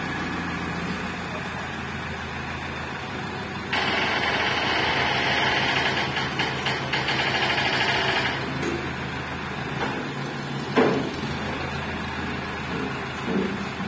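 Mobile crane's engine running steadily while it hoists a chain-slung wooden crate, louder and harsher for a few seconds in the middle as it works under load. A single knock comes near the end.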